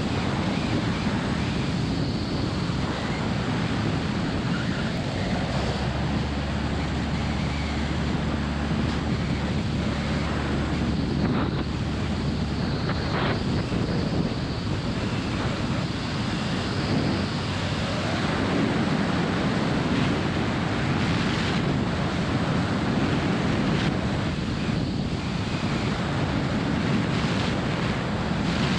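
Steady rush of airflow buffeting the microphone of a camera mounted outside a Jodel DR1050 light aircraft in flight. The engine and propeller drone sits low underneath it.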